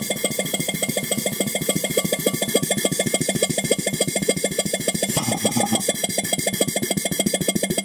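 DWM Copeland semi-hermetic reciprocating compressor running on a variable frequency drive, a fast, even pulsing that is mostly intake noise as it pulls a vacuum without back pressure. A brief extra rattle comes about five seconds in.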